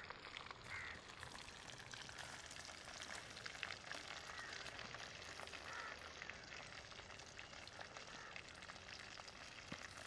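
Faint, steady crackling sizzle of whole quail frying in oil in a metal pan over a wood fire.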